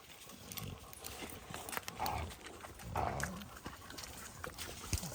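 Dogs and a caught hog scuffling and trampling in brush, with uneven thumps and rustles and two short animal cries about two and three seconds in.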